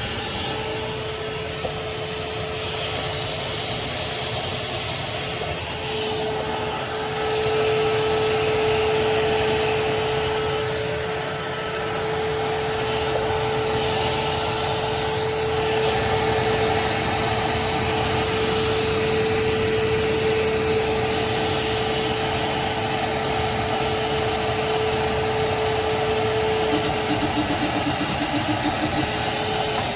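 Craftsman 16-gallon, 6.5 peak HP wet/dry shop vac running steadily, a constant motor whine over rushing air. It gets louder about seven seconds in.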